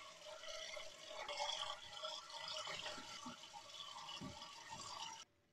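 Tap water running and splashing while shaving lather is rinsed off the face with wet hands. It cuts off suddenly near the end.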